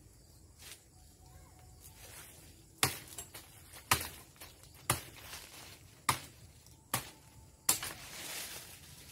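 Branches being chopped with a blade: six sharp chops about a second apart, starting about three seconds in.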